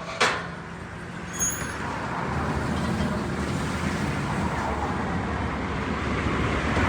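Road traffic noise from a passing vehicle, swelling steadily as it approaches, after a sharp click near the start.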